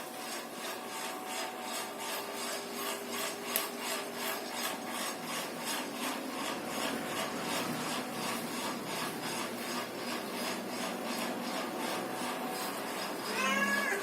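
Steady rhythmic rasping, about four strokes a second, then a short cat meow near the end.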